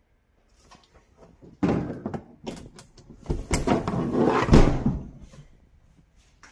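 Makeshift adapter plug being pushed into a 240-volt dryer outlet: a run of scraping and clunking as the heavy prongs are worked into the receptacle, loudest near the middle.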